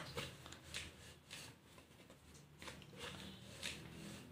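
Wooden rolling pin rolling out soft bread dough on a wooden board: faint, repeated rubbing strokes, with a sharp knock right at the start.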